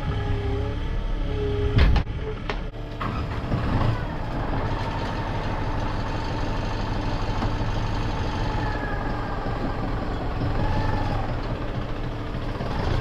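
An engine running steadily, with a whine that holds for several seconds and dips in pitch a couple of times. A few sharp knocks about two seconds in.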